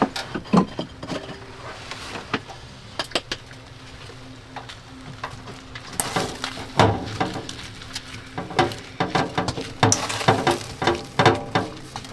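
Cooking sounds: utensils and cookware knocking and clinking, a run of short sharp clicks that gets busier about halfway through.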